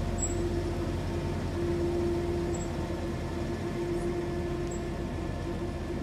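Diesel engines of pneumatic-tyred road rollers compacting asphalt, running steadily: a continuous low drone with a constant mid-pitched tone over it.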